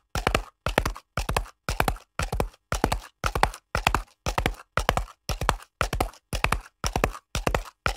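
Horse hoofbeats in a steady, even rhythm, about two strides a second, each stride a quick cluster of hoof strikes.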